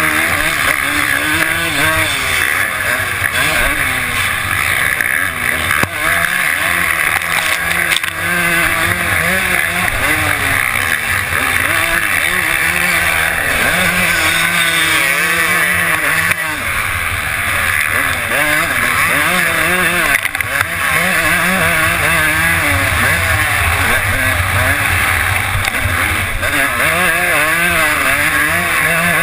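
Suzuki RM250 single-cylinder two-stroke motocross engine at race pace, its revs rising and falling over and over as the rider works the throttle and gears, with a few brief dips.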